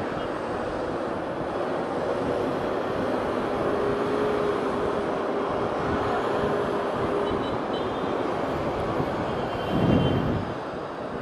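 Motorcycle riding through city traffic: its engine running at a steady pace under wind and road noise, with a steady engine hum through the first two-thirds and a brief louder swell about ten seconds in.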